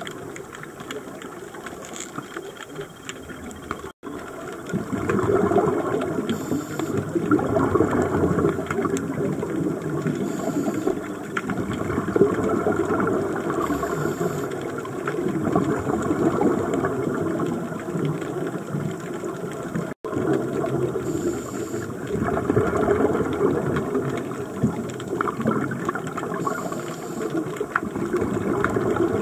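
Scuba breathing heard underwater. A bubbly rush of exhaled air is interrupted every few seconds by a short, high hiss of inhalation through the regulator. The first few seconds are quieter, with faint clicking.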